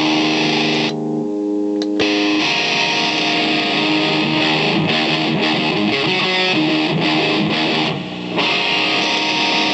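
Electric guitar strumming chords through a distortion effect, the harsh fuzz dropping away briefly twice while the low notes ring on.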